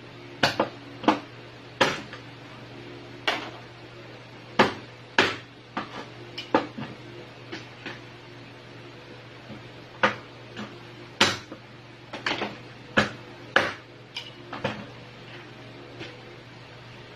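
Irregular sharp knocks and clatters of a cleaver and crab pieces on a plastic cutting board and metal tray as crabs are cut up, about twenty strikes in all, with a steady low hum underneath.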